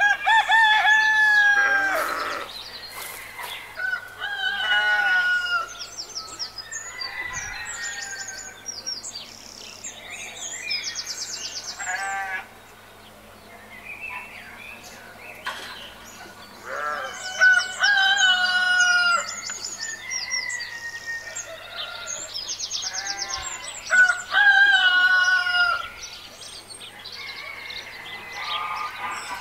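Roosters crowing several times, each crow a long call falling at its end, with hens clucking and small birds chirping between the crows.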